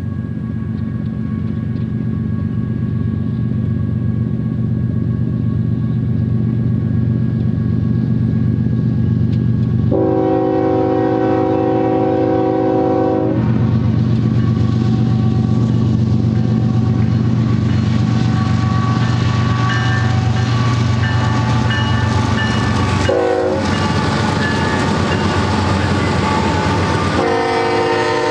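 Two GE ES44AC diesel locomotives, led by Norfolk Southern 8034, running under power as they approach and pass, the engine drone growing louder. The lead unit's air horn sounds a chord three times: a long blast about ten seconds in, a short one about two-thirds through, and another starting just before the end.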